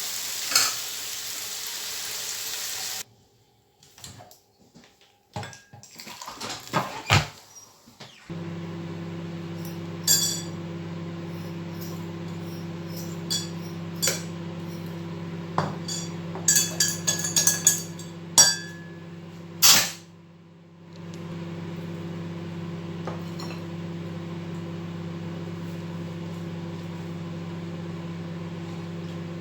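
Sizzling of the chicken filling frying in a pan for the first three seconds, then scattered clinks and knocks of utensils against dishes and pans. From about eight seconds a steady electrical hum from a kitchen appliance runs under the clinks, dropping out briefly around twenty seconds.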